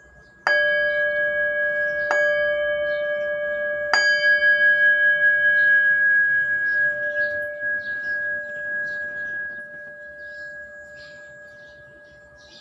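Brass bowl bell struck three times with a wooden striker, the strikes a second and a half to two seconds apart. Each strike rings with several clear tones, and the ringing fades away slowly over the following eight seconds.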